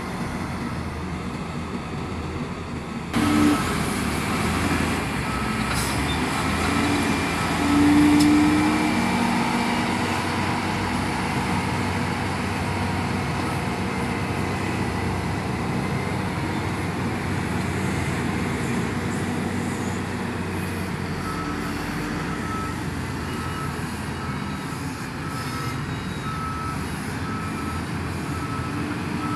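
Diesel engines of several wheel loaders running while they work in sand, a steady drone that jumps up in level about three seconds in. In the later part a reversing alarm beeps repeatedly.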